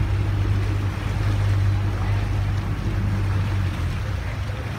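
Boat engine running steadily with a low drone, over the rush of water and wind.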